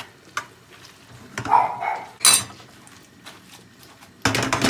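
A metal fork clinking and scraping in a nonstick frying pan as spaghetti is stirred, with a short squeak about a second and a half in and a loud clatter just after. Near the end comes a quick run of metal rattles as the pan is shaken on the gas-hob grate.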